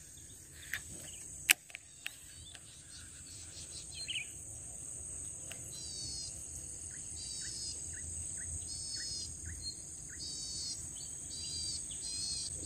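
Steady high-pitched insect drone over marsh ambience. From about halfway through, a bird calls repeatedly in short, evenly spaced chirps. A couple of sharp clicks come about a second in.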